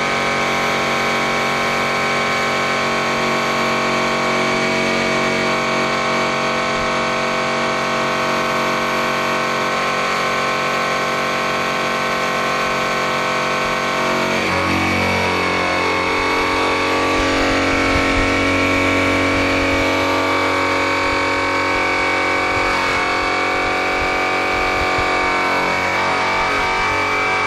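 DeWalt variable-speed rotary polisher running steadily with a cloth buffing wheel pressed against a chrome wheel, a continuous motor whine. About halfway through, the pitch shifts down and a lower hum comes in as the buff takes more load.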